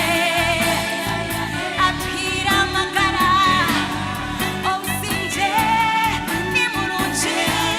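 A band playing a song, with a singing voice whose pitch wavers with vibrato over a steady bass and drum backing.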